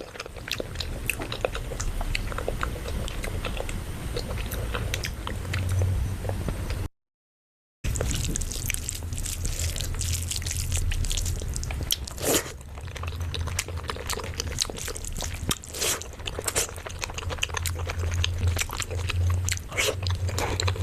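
Close-miked chewing and biting: a person eating with irregular crunches and wet mouth clicks, the odd louder crunch standing out. The sound cuts out completely for about a second some seven seconds in.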